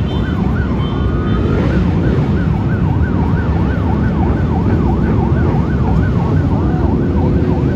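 Police escort sirens yelping, the pitch sweeping quickly up and down about twice a second, over a loud low rumble of traffic.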